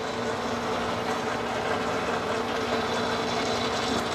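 Sheldon No. 0 horizontal milling machine running steadily: a constant three-phase motor hum with gear and drive noise.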